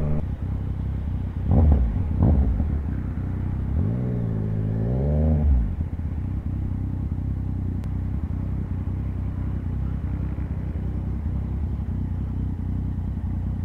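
Motorbike engine running while riding in traffic, with steady wind rush over the microphone. About four seconds in, an engine note rises and then falls back over a second or so.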